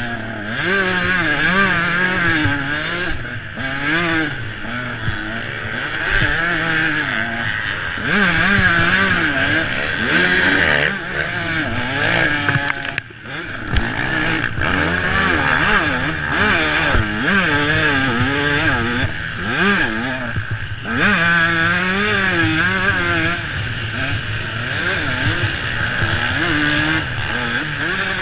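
Dirt bike engine revving hard and easing off again and again through the gears as it is ridden around a motocross track, heard from a camera on the bike. About halfway through it briefly drops away before picking up again.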